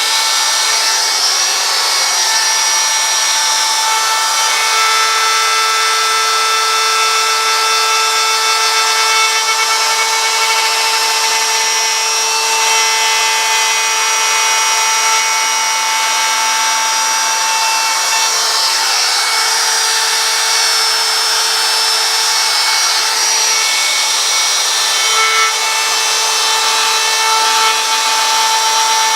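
Power tool with a high-speed motor whining steadily while it cuts wood; the cutting noise swells and eases as the load changes.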